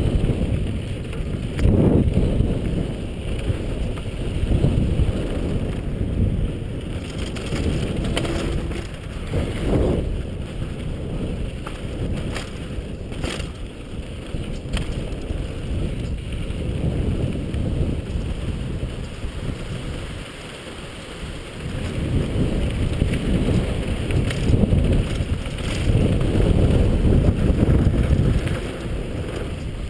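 Wind buffeting the microphone of a GoPro action camera: a low rumble that rises and falls in gusts, easing off briefly about twenty seconds in.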